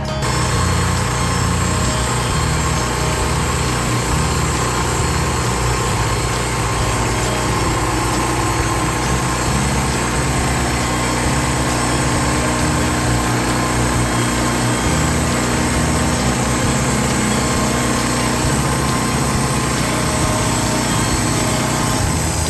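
Norwood LM30 portable bandsaw sawmill's gasoline engine running steadily.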